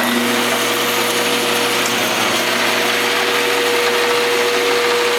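Ridgid 14-inch bandsaw running with no cut, a steady whir with a constant hum. It runs with little vibration and fairly quietly, its blade held in Cool Blocks guides.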